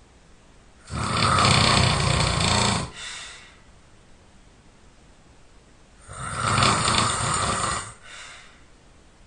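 A person snoring loudly: two long snores of about two seconds each, about five seconds apart, each followed by a shorter, fainter sound.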